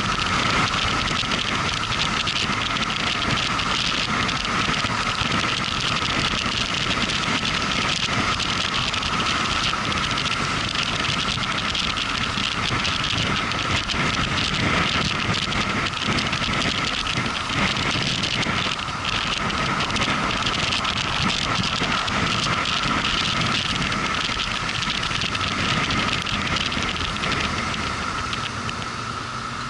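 Motorcycle under way at a steady speed: engine, wind and road noise. The noise eases off near the end as the bike slows.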